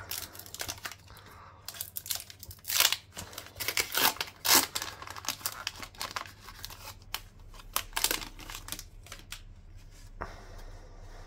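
Foil wrapper of a Pokémon trading card booster pack being torn open and crinkled in the hands: irregular rips and crackles, the loudest at about three seconds and about four and a half seconds in. It goes quieter for the last second or so.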